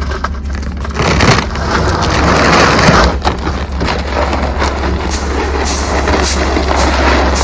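Shelled corn poured loose from a feed bag onto the ground, a steady rushing rattle of kernels over a constant low rumble, with rhythmic swishes about twice a second near the end.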